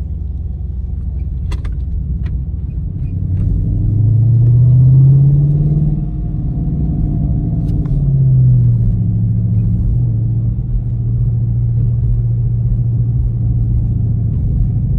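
2018 Dodge Charger R/T's 5.7-litre Hemi V8 heard from inside the cabin while driving: a steady low rumble, with the engine note climbing under throttle about four seconds in, falling back near six seconds, rising briefly again near eight seconds, then settling into a steady cruise.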